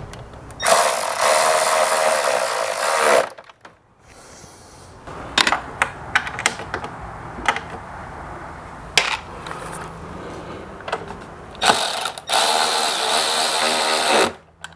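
A handheld power tool runs twice, each time for about two and a half seconds, once near the start and once near the end. In between come scattered clicks and knocks of parts and tools being handled.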